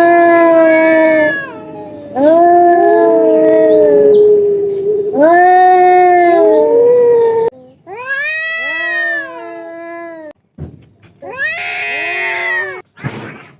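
Two cats caterwauling at each other in a fight: a run of long, wavering yowls that rise and fall in pitch, one after another. Near the end comes a harsher, noisier screech.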